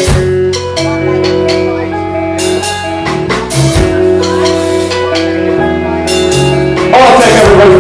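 Live rock band playing: guitar and bass notes ringing over drums, with a voice shouting or singing near the end.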